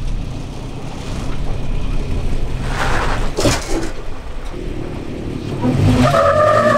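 Toyota FJ Cruiser's 4.0-litre V6 running at low crawling speed as the truck climbs over concrete culverts and rocks. A brief burst of noise comes about three seconds in, and the engine gets louder near the end.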